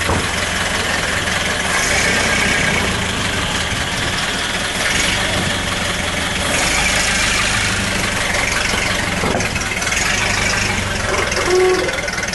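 Car engine idling steadily with voices in the background, and a short pitched sound near the end.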